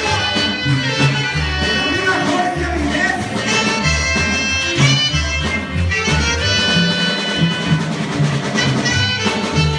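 Live band playing regional Mexican music from Sonora: a reedy lead melody over a steady, pulsing bass line.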